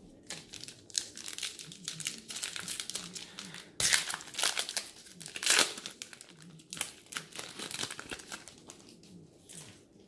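Plastic foil wrapper of a 2018 Score Football trading-card pack crinkling and tearing as it is ripped open and handled, in irregular crackles with the loudest bursts about four seconds in and again about five and a half seconds in.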